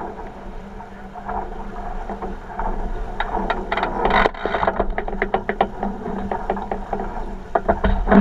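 A 49er skiff under sail, with water rushing and slapping against the hull. Many quick knocks and rattles come from the boat and its rigging, and there is a heavier thump near the end.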